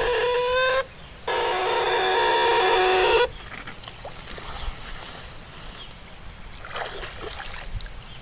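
Homemade PS semi-type eel shocker (setrum belut) buzzing in two steady bursts, the first ending under a second in and the second lasting about two seconds, as its probe is pressed into paddy mud. After that come quieter splashes and mud sounds.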